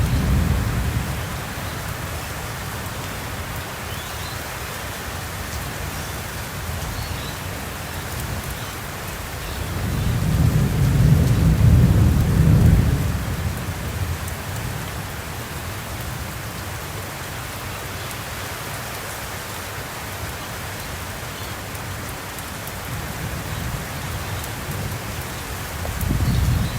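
Summer thunderstorm: steady rain with rolling thunder. A rumble dies away in the first second or two, a long roll swells and fades around the middle, and another rumble begins near the end.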